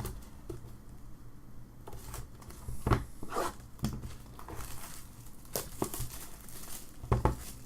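Plastic and paper card packaging crinkling and tearing as it is handled and opened, with a couple of sharper knocks about three seconds in and near the end.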